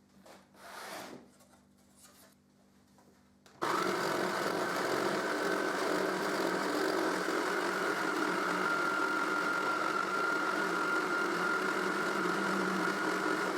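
Jigsaw mounted under a homemade jigsaw table starts about three and a half seconds in and runs steadily, cutting a board strip freehand. Before it starts, only faint light handling noises.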